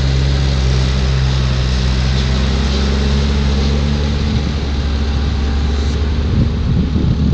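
Tractor engine idling steadily, turning rougher and more uneven near the end, then cutting off suddenly.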